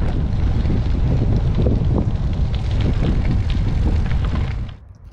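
Wind noise on the microphone of a bicycle-mounted camera while riding, with the bike's tyres crackling over a gravel path. It cuts off suddenly near the end.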